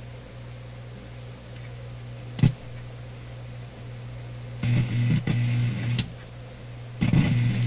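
Zenith 9F25 console stereo running with a steady low mains hum from its amplifier and speakers. A sharp click comes about two and a half seconds in, then loud bursts of crackly, noisy sound from the speakers about five seconds in and again near the end.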